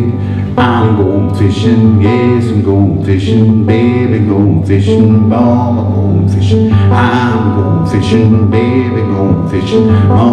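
Metal-bodied resonator guitar played live, strummed chords in a steady, regular rhythm over a sustained bass.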